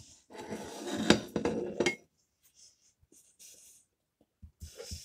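Knife and fork scraping and clinking on a ceramic plate while cutting a puff-pastry hog roast roll, with sharp clicks over roughly the first two seconds. After that come faint small ticks, and a breath near the end.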